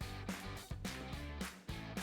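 Background music: a strummed guitar with a steady, even rhythm.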